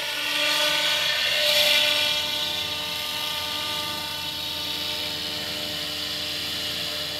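Electric radio-controlled scale helicopter with T-Rex 700 DFC mechanics flying overhead: a steady high motor-and-gear whine over the whoosh of the rotor blades, a little louder about a second and a half in.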